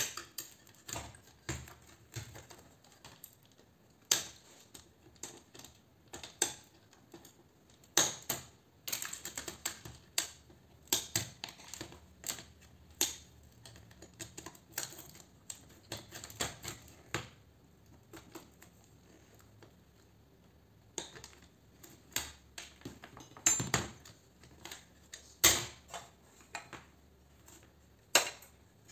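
Irregular metallic clicks, snips and clinks of pliers and loose steel and aluminium parts as a light fitting's capacitor, wiring and mounting plate are pulled apart by hand, with a short lull about two-thirds of the way through.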